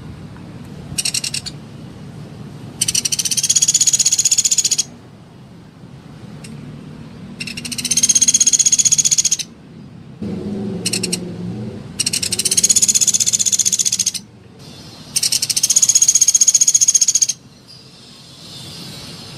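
Sunda pygmy woodpecker (pelatuk beras) giving a series of fast, dry, rattling trills. There are about six bursts: two short ones and four of about two seconds each, with gaps between them.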